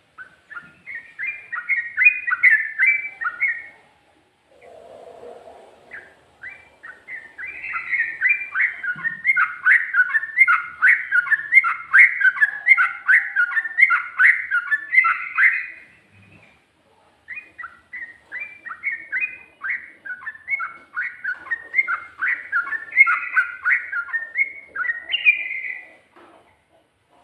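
Sooty-headed bulbul (trucuk) singing in three long runs of rapid, quickly repeated whistled notes, the longest in the middle, with short pauses between.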